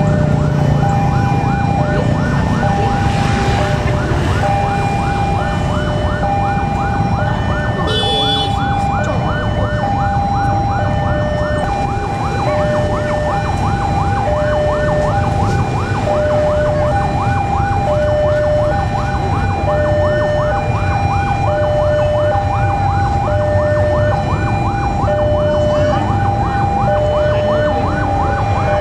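Railway level-crossing warning alarm sounding: an electronic two-tone signal alternating a higher and a lower tone, each about half a second long, with a faster ringing pattern over it. A steady low rumble runs beneath, and a short high horn-like toot comes about eight seconds in.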